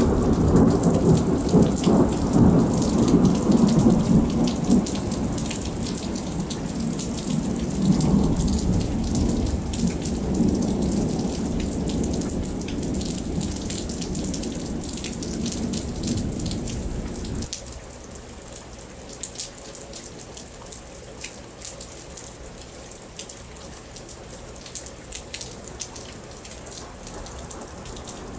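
Thunder rolling in a long low rumble that slowly fades, then stops abruptly a little past halfway. Steady rain falls throughout, with many individual drops ticking.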